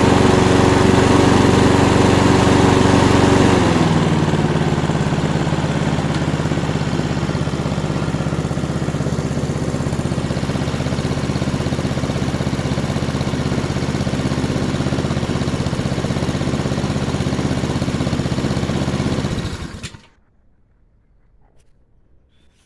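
Honda GCV135 single-cylinder four-stroke engine of a Mountfield Power Drive petrol lawnmower running fast. About three and a half seconds in it drops to a lower, steady speed. It stops abruptly about twenty seconds in.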